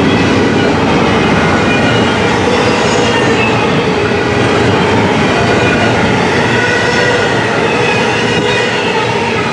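Double-stack intermodal container train's well cars rolling past: a loud, steady rumble of steel wheels on rail, with thin squealing tones wavering over it.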